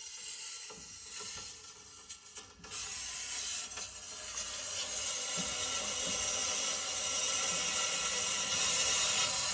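Water hissing through household supply pipes as the main water valve is opened. The hiss starts about three seconds in and builds steadily as the drained pipes refill.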